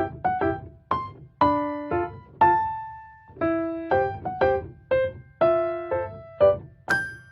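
Background music: a slow melody of single struck keyboard notes, each ringing and fading, about two notes a second.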